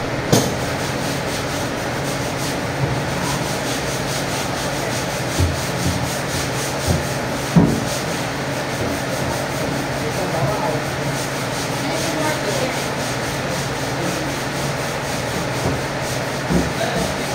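Steady mechanical whir with a low hum underneath, broken by a few short knocks, the loudest about seven and a half seconds in.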